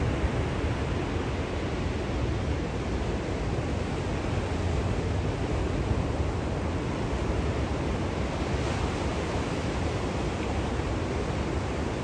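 Atlantic Ocean surf: a steady, continuous rush of waves with a deep low rumble and no separate crashes standing out.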